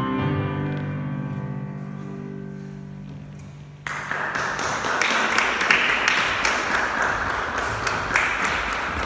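The last chord of the song on an electronic keyboard rings on and fades for about four seconds after the children's choir stops singing. Then applause starts suddenly and carries on, many hands clapping.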